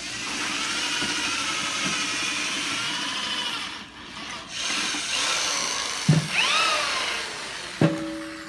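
Cordless drill spinning an ear of corn on its chuck while the cob is worked through a bucket-mounted corn cutter, the blades stripping off the kernels. The drill runs in two spells of a few seconds each with a short pause between them, and its whine falls away as it winds down. Two sharp knocks come near the end, the second with a brief ring.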